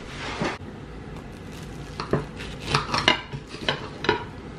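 A knife cutting through a toasted sandwich on a ceramic plate: a short rasp through the crust at first, then a run of irregular sharp clinks of metal against the plate.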